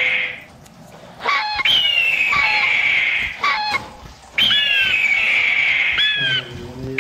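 Bird sound effects: a long harsh screech falling in pitch, heard twice with brief lulls between, mixed with short chirps that rise and fall and a few clicks.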